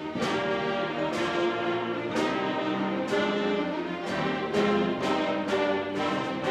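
Orchestral music led by brass, with sustained notes and struck accents about once a second.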